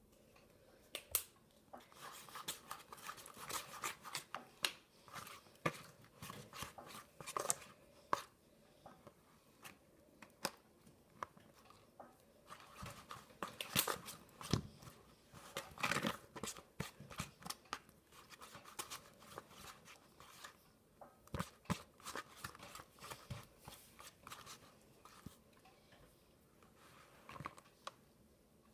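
Plastic spoon stirring glue into slime in a paper bowl: irregular scrapes and sticky clicks against the bowl, busiest in the middle, as the mixture thickens.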